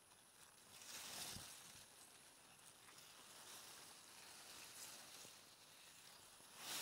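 Near silence with faint rustling of long grass blades brushed aside, swelling briefly about a second in.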